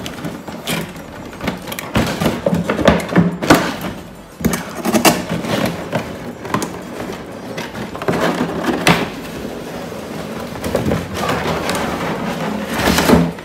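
A large cardboard box scraping, rubbing and rustling as the heavy figure in its plastic packaging is worked out of it, with irregular knocks and thuds.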